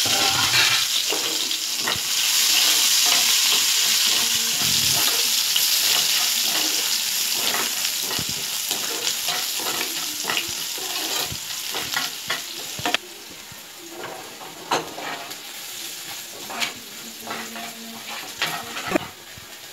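Chopped onion, curry leaves, mustard seeds and fenugreek sizzling in hot oil in a nonstick frying pan, stirred with a spatula that clicks and scrapes against the pan: the tempering for a fish curry. The sizzle cuts off suddenly about two thirds of the way through, leaving fainter clicks and taps.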